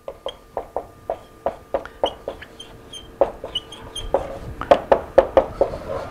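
Dry-erase marker tapping and squeaking on a whiteboard as words are written: an irregular run of sharp taps, about three a second, with short high squeaks between them. The taps are loudest around the fifth second.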